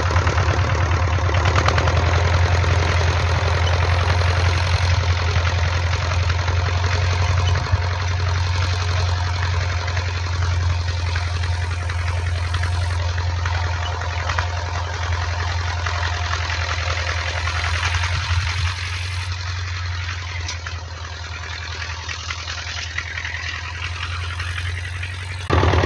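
Scout walk-behind tractor's engine running steadily under load as it pulls a plough through the soil. It grows slowly fainter as the tractor moves away.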